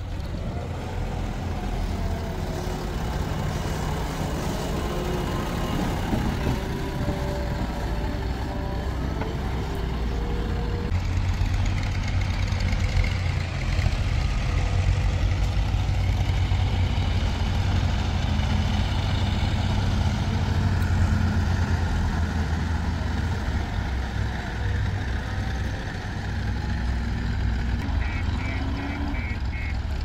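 Heavy diesel engines of a JCB 3DX backhoe loader and farm tractors running under load, getting louder from about eleven seconds in. A short run of beeps comes near the end.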